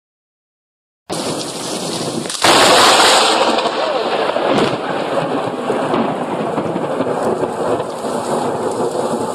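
Heavy rain and wind starting about a second in, then a sudden loud thunderclap from a lightning strike, with the storm noise staying loud after it.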